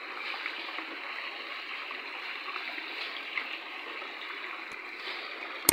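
Steady rush of water flowing along a concrete irrigation canal, with a sharp click at the very end.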